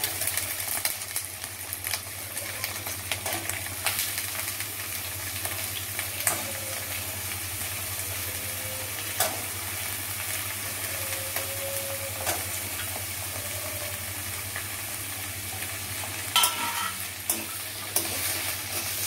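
Cut carrots and green beans sizzling in hot oil in a nonstick kadai, stirred with a metal spatula that scrapes and taps against the pan every few seconds. A few sharper knocks come near the end.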